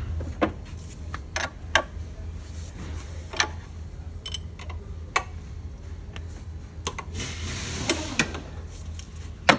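Scattered metallic clicks and knocks of hand wrenches working on the high-pressure fuel-line fittings of a diesel engine, over a steady low hum, with a stretch of hiss a little after seven seconds in.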